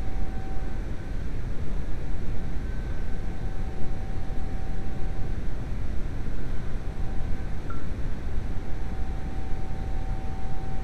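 Steady low rumble and hiss of outdoor background noise, with a faint hum that comes and goes.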